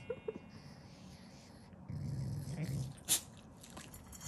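Shiba Inu growling low for about a second, roughly halfway through, then a single sharp click about three seconds in. The growl is the dog's habitual growl while being fed, not anger.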